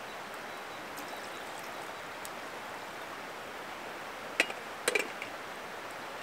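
Two sharp metal clinks about half a second apart, a little over four seconds in, as the small brewing pot of a Turkish double teapot is set back down on its kettle. A steady hiss runs underneath.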